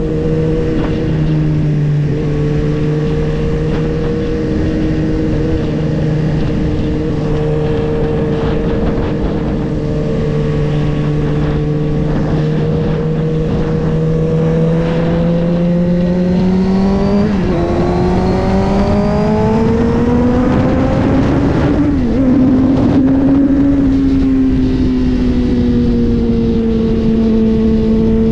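Suzuki GSX-R1000's inline-four engine running at steady cruising revs, then revving higher over several seconds with a couple of brief dips, before settling and easing off slightly. Wind rushes over the microphone throughout.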